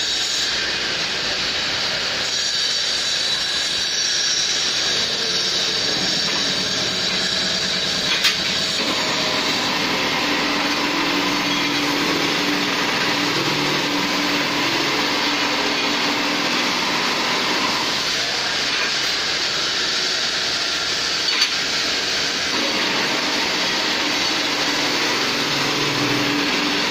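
Hand-guided radial-arm stone polishing machine running, its abrasive disc grinding wet granite with a steady grinding noise. A low hum comes and goes, and there are two short knocks, about eight seconds in and again around twenty-one seconds.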